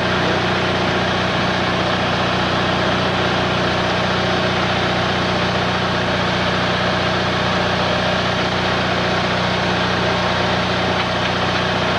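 Vehicle engine idling steadily, a constant low hum with an even background rumble.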